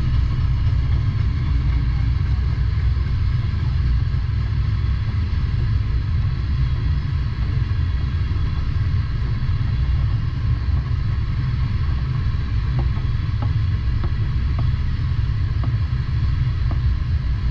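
Freight train of covered hopper cars rolling past: a steady low rumble, with faint clicks coming through in the second half.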